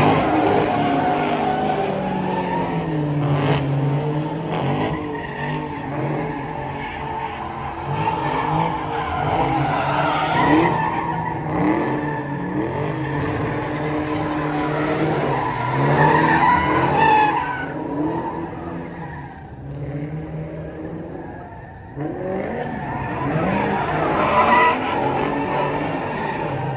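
A car doing donuts: the engine revs up and down over and over while the tyres squeal. It eases off for a few seconds about two-thirds of the way in, then picks up again sharply.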